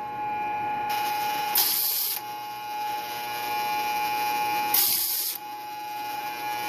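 Pneumatic seal plug insertion gun cycling twice, about three seconds apart, each cycle a short blast of compressed air lasting about half a second as a rubber seal plug is shot into the connector. Underneath runs the steady electric hum of the vibratory bowl feeder.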